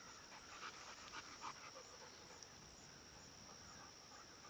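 A dog panting softly in short breaths during the first second and a half, over a steady high-pitched drone of insects.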